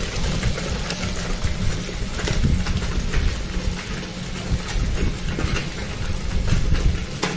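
Electric wet grinder running steadily, its stone roller churning red chilli paste in a steel drum, with a low rumble throughout. Occasional short scrapes and knocks of a spoon in an aluminium pot.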